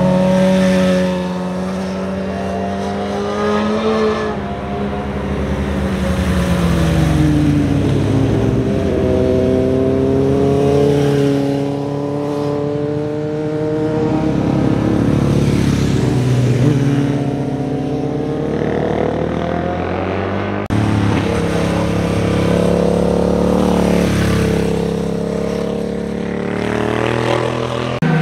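Sport motorcycles passing through a hairpin bend one after another, engines revving: the engine note falls as they slow into the curve and rises again as they accelerate out. Near the end of the first third and again about two-thirds in, the sound jumps abruptly to another pass.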